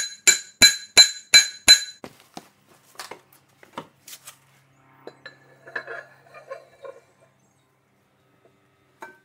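Hammer striking steel on a Ford 4100 tractor's rear axle assembly, about six hard ringing blows in quick succession in the first two seconds. A few lighter metal clinks and some scraping of heavy steel parts being handled follow.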